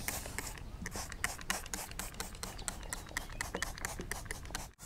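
Hand trigger spray bottle misting water onto potting soil in a quick run of short squirts, with a brief dropout near the end.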